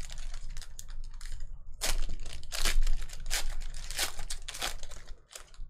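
A sealed black plastic pack wrapper being torn open and crinkled by hand. There is a continuous crackle, with louder sharp rips about every half second from about two seconds in, dying away near the end.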